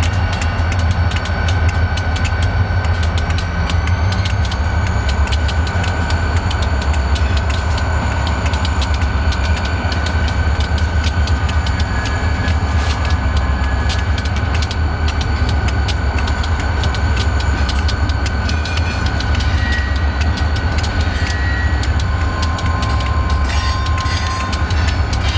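Freight cars rolling past with their wheels clicking over the rail joints, over the steady low rumble of diesel locomotives idling close by. A few brief high squeals come near the end.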